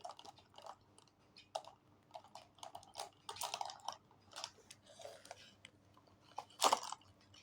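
Quiet chewing and crunching mouth sounds in short scattered clicks, with one louder short noise near the end.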